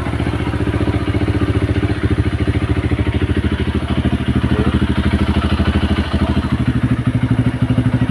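Kawasaki KLX 140's single-cylinder four-stroke engine idling with a steady, even rapid pulse, just started after sitting unused for a long time.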